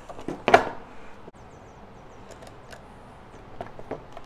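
Small handling sounds of hardware and tools on a wooden workbench: one short, louder knock about half a second in, then scattered light clicks and taps.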